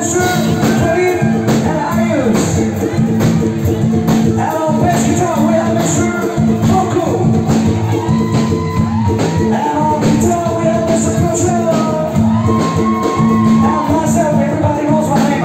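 Live band playing a song: a singer's lead vocal over a steady drum beat and a sustained bass line, loud through the club's sound system.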